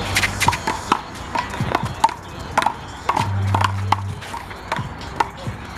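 A rubber handball smacking off hands, the wall and the pavement in a rapid, irregular run of sharp knocks during a rally. A low hum comes in for about a second just past the middle.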